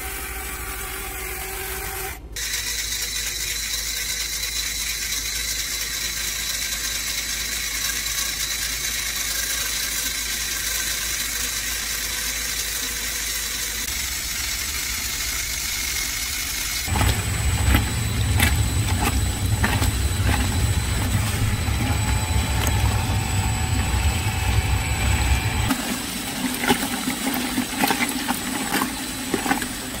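Motors and gears of a Lego Technic washing machine running with a steady whir. About halfway through it changes to a louder low rumble with rattling clicks as the clear drum turns with clothes inside.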